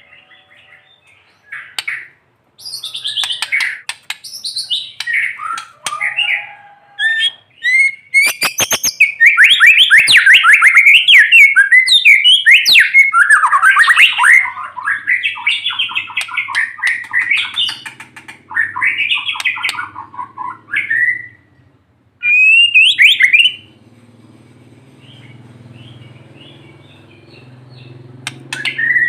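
White-rumped shama (murai batu) singing loud, fast, varied phrases of whistles and harsh chattering, with a run of sharp clicks about eight seconds in. The song breaks off for several seconds near the end, leaving only a faint low hum, then starts again.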